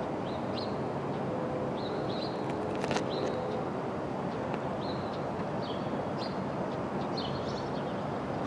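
Steady rumble of city traffic with small birds chirping in short, repeated calls, and a single sharp click about three seconds in.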